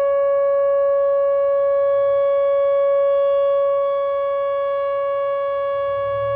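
Whelen WPS 2910 electronic outdoor warning siren sounding a steady tone at one unchanging pitch, loud and rich in overtones, during a monthly test.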